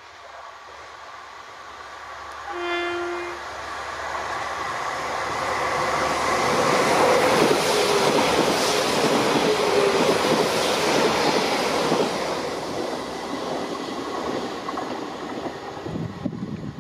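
A Black 5-hauled railtour train passing at speed: its rumble and wheel noise build up, peak, then die away. A short one-note warning blast sounds about two and a half seconds in.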